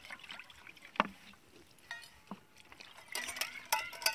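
Stainless-steel bowls being rinsed with water poured from a plastic bottle: water sloshing, with sharp clinks of steel on steel about a second in and again after two seconds, and a ringing clatter of the steel containers near the end.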